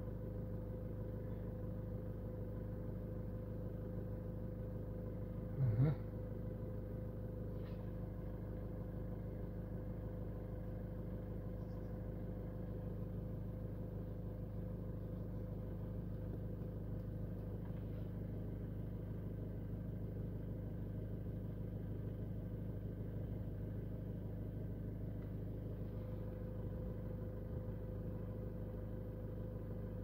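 A VW Golf 7 idling with a steady, even hum. There is one brief, louder sound about six seconds in.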